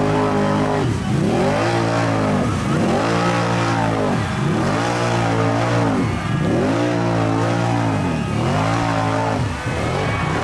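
Mud-racing ATV engine revving up and down over and over, about every second and a half, as it churns through a deep mud pit on paddle-style mud tires, spraying mud.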